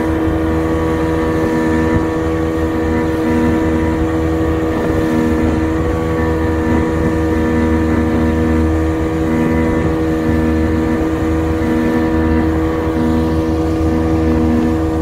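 Yamaha 70 hp two-stroke outboard motor running steadily at cruising speed under load, towing a banana boat, with the rush of the wake underneath.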